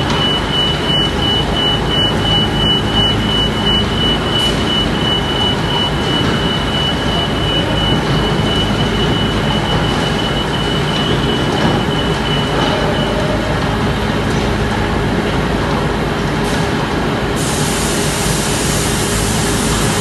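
Steady, loud industrial machinery noise with a thin high whine that fades out about two-thirds of the way through.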